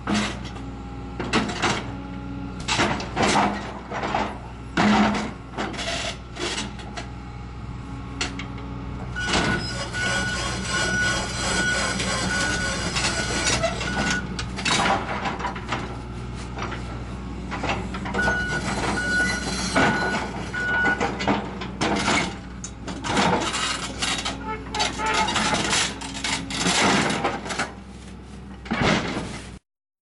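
Tracked excavator's diesel engine running under load while its bucket crushes and tears apart an old crawler bulldozer: repeated metal crunches, clanks and scraping over the steady engine. A beeping comes in twice in the middle, and the sound cuts off suddenly near the end.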